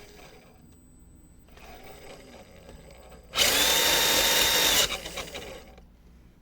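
RC crawler's electric motor and drivetrain whirring under throttle with the truck upside down and its wheels spinning free: the loud whir holds a steady pitch for about a second and a half, then winds down.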